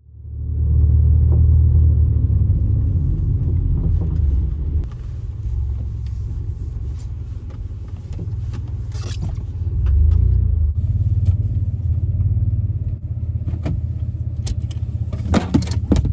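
Low, steady rumble of a Mitsubishi SUV driving, heard from inside the cabin, with scattered clicks and knocks that become more frequent near the end.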